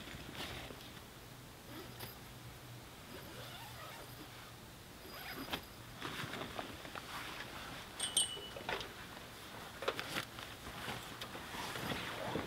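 Camping gear being handled by hand: rustling of a pack and fabric with scattered clicks and light clinks, and one short metallic ring about eight seconds in.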